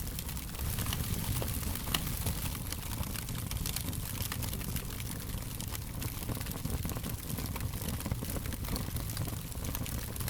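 Wood fire crackling, with dense small pops and snaps over a steady low rumble of flame; one sharper pop comes about two seconds in.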